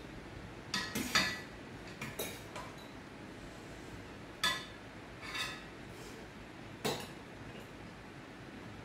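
Metal utensils, a steel ladle and chopsticks, clinking against a stainless steel pot and bowls while food is served: about seven sharp, irregular clinks, the loudest about a second in.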